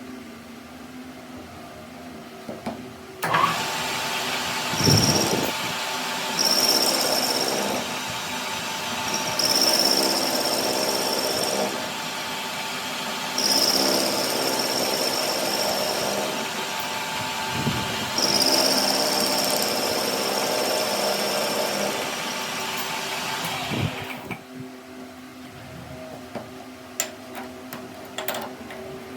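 A power tool's motor starts about three seconds in and runs steadily for about twenty seconds before stopping. Five times during the run, high-pitched stretches of one to three seconds come in, typical of the tool working metal.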